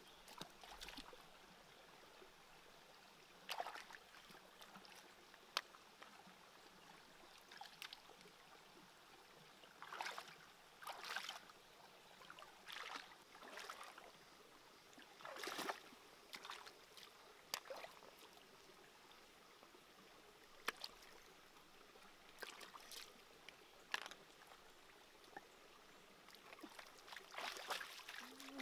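Bare feet wading and splashing through a shallow, rocky stream over a faint steady trickle of running water, with irregular louder splashes and a few sharp clicks.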